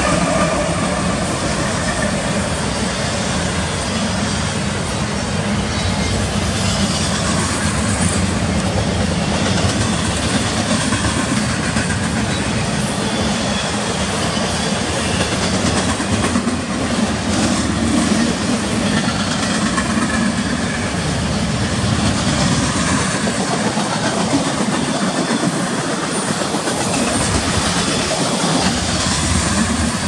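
Double-stack intermodal freight train passing close by. The trailing GE C44-9W diesel locomotives run by with a low engine drone in the first several seconds, then the container cars' wheels roll past on the rails in a steady noise.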